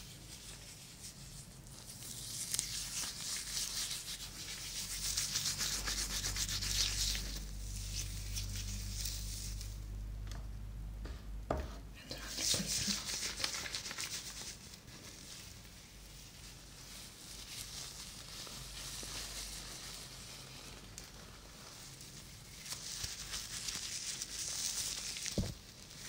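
Close-up rubbing and scrubbing on the microphone, swelling and fading in slow waves, as in an ASMR shampoo and head massage, with a couple of soft knocks.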